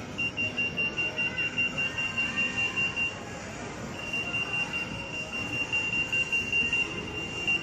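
RF 8.2 MHz EAS anti-theft security gate alarm beeping rapidly, about four high beeps a second, the signal that the gate has detected a security tag. The beeping stops for about a second near the middle, then starts again.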